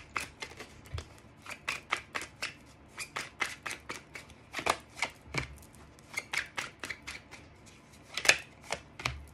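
A deck of tarot cards being shuffled by hand: an irregular patter of short card slaps and flicks, about two or three a second, with one louder slap near the end.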